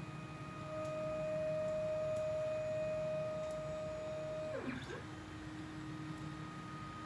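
Stepper motors of a LowRider CNC 2 driving the gantry: a steady whine that dips sharply in pitch about four and a half seconds in as the machine slows and changes move, then holds at a lower steady tone.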